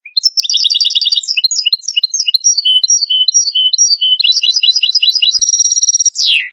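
European goldfinch singing one continuous burst of fast, high twittering notes and trills. It ends in a steady trill and a note sliding downward, then cuts off abruptly.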